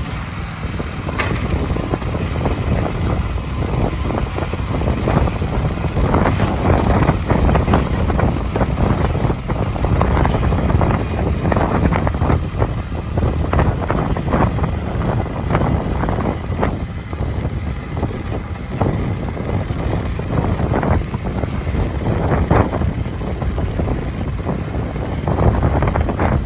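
Ants M10E micro excavator running, its engine giving a steady low rumble with many short clanks and knocks over it.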